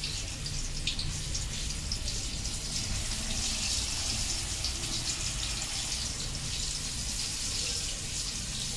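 Hot oil sizzling steadily in a kadai, with small crackles, as batter-coated dumplings deep-fry.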